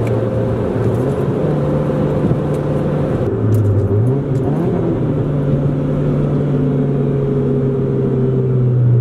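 1997 Honda Civic hatchback's four-cylinder engine running under way, with road and tyre noise, heard from inside the cabin. The engine note holds steady, then dips and climbs again about four seconds in.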